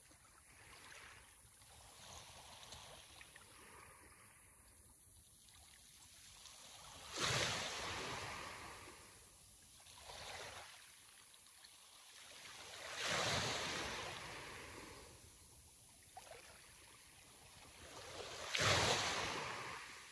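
Sea waves breaking on a shore. Three larger waves break about six seconds apart, each setting in suddenly and fading over a few seconds, with smaller swells between them.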